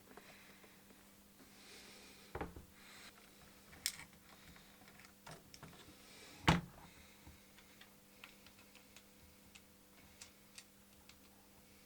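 Scattered light clicks and taps of plastic parts and small tools being handled, with one louder knock about six and a half seconds in.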